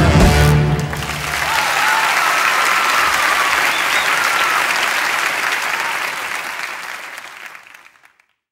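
A sung final note and orchestral chord end within the first second, then a theatre audience applauds, the applause dying away near the end.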